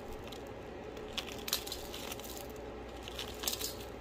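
Spice powder and whole seeds poured into a steel mixing bowl of gram flour: a few faint ticks and rustles over a low steady hum.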